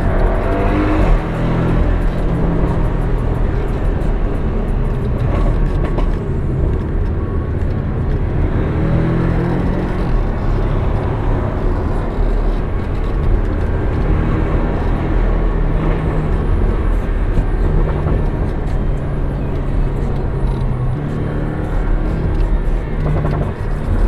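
Engine and road noise heard from inside a Porsche 718 Cayman's cabin as it drives along, with the engine note rising briefly near the start. Music plays along with it.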